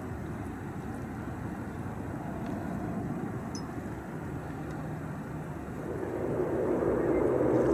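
Airbus A320 jet engines running as the airliner rolls along the runway: a steady rumble that grows louder over the last couple of seconds.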